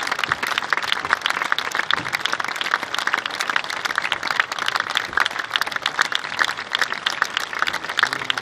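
Audience applauding: a steady, dense patter of many hands clapping, with no letup.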